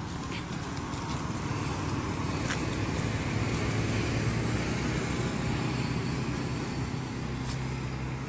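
Engine of a road vehicle passing on a nearby road, a low drone that swells to its loudest mid-way and then fades, with a few sharp clicks.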